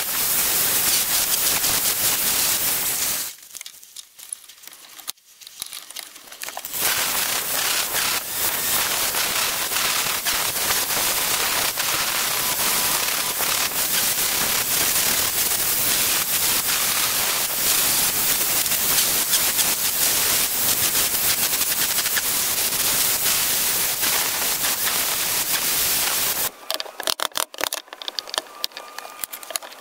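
Angle grinder with an abrasive disc grinding a steel cleaver blade, a steady hissing rasp that eases off for a few seconds about 3 s in and resumes. About 26 s in the grinding stops and light clicks and taps of small parts being handled follow.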